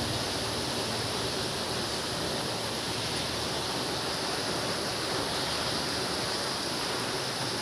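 Very heavy rain pouring down, a dense, steady hiss.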